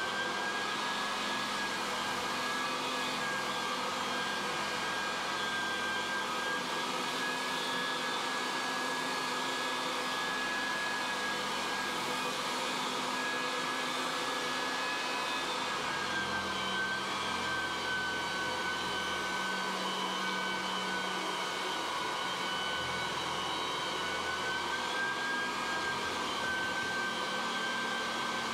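An electric motor running steadily, a constant whir with a thin whine that wavers slightly in pitch.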